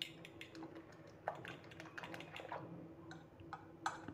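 Metal spoon beating raw egg with chopped vegetables and cornflour in a ceramic bowl, clicking and tapping against the bowl in quick irregular strokes, with a few louder knocks.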